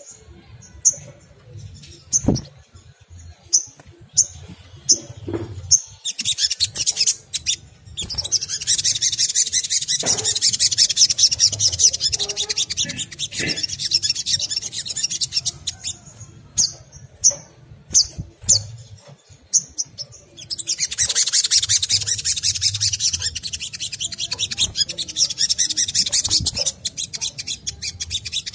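Olive-backed sunbird calling: separate sharp high chirps at first, then long fast twittering runs of notes. Twice the chirps give way to these dense chattering runs, each lasting several seconds.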